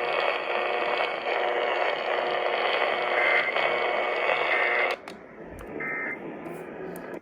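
Hissy, noisy broadcast audio from a weak radio signal. Through it come three short bursts of warbling data tones, a little over a second apart: the Emergency Alert System end-of-message codes that close the test. The hiss drops sharply about five seconds in.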